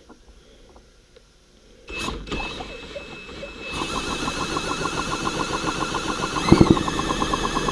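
McCulloch Super 550 chainsaw engine being cranked over without firing, a steady rhythm of about eight strokes a second with a louder knock partway through. It does not catch because the ignition is giving no spark.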